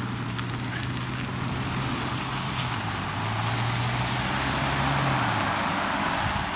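A car driving past: a steady engine hum over tyre and road noise that grows louder, the hum dropping away about five seconds in.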